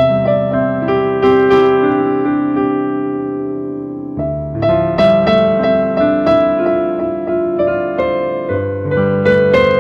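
Slow, sustained electric piano or keyboard music: held chords with single notes moving over them, new chords struck near the start, about four seconds in and again about nine seconds in.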